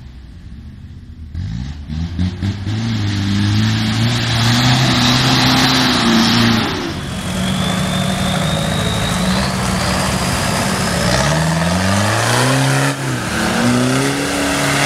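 Toyota Land Cruiser LJ70's 2.4-litre turbodiesel four-cylinder engine revving hard under load off-road, its pitch climbing and dropping again and again with the throttle. It comes in loud about a second and a half in, and a thin high whistle rises slowly through the middle.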